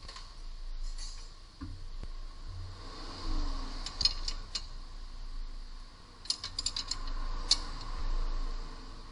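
Hand ratchet wrench turning a bolt on a car's front suspension, its pawl clicking in short runs about four seconds in and again from about six to seven and a half seconds.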